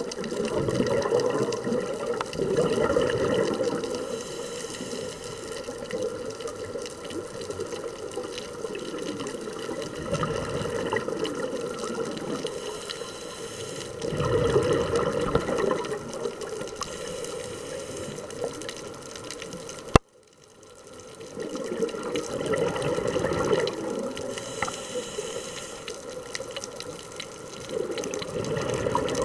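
Underwater sound of a scuba diver breathing through a regulator: bursts of exhaled bubbles swelling and fading several times over a steady watery hiss. About two-thirds through there is a sharp click and the sound cuts out for a moment before building back up.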